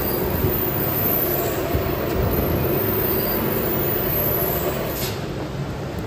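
Steady mechanical drone of a running rotary drum carbonization furnace, with a faint held tone over the rumble.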